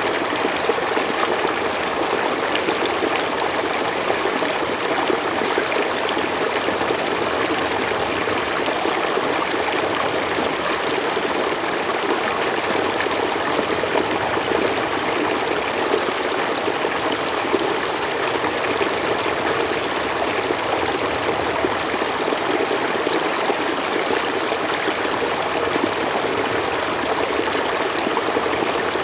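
A river or stream flowing steadily over rocks, rushing and trickling at an even level.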